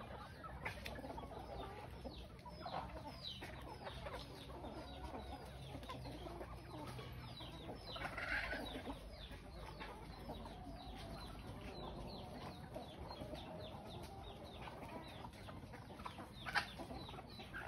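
A flock of free-ranging chickens, roosters and hens, clucking and calling, with many short high chirps throughout. A louder call comes about eight seconds in, and a brief sharp one near the end.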